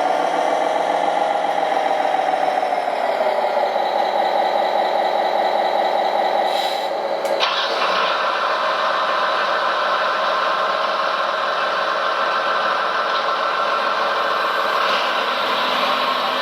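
Radio-controlled construction models' small electric motors and gearboxes running with a steady whine that wanders slightly in pitch. The sound changes abruptly about seven seconds in, as one machine's whine gives way to another's.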